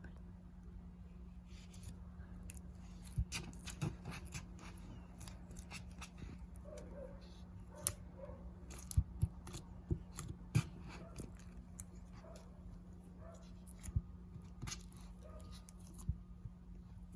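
Clear slime being handled, giving irregular sharp clicks and small pops, some in quick clusters.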